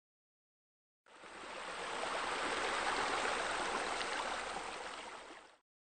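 Steady running, splashing water that fades in about a second in and fades out just before the end.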